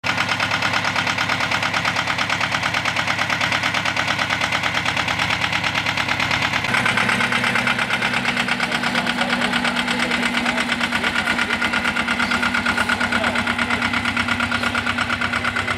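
Small diesel engine of a ride-on miniature Co-Co diesel-hydraulic locomotive running steadily with an even, rapid beat. The tone shifts slightly a little after halfway.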